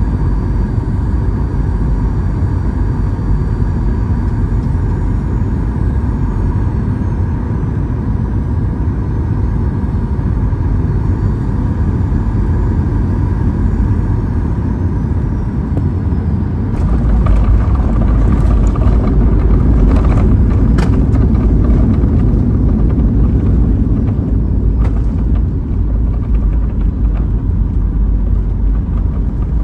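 Cabin sound of a Boeing 737-800's CFM56-7B engines on final approach: a steady drone with a high whine that falls in pitch. About 17 s in the wheels touch down with knocks and a sudden heavy rumble, and the noise swells for a few seconds before easing slightly as the aircraft rolls down the runway.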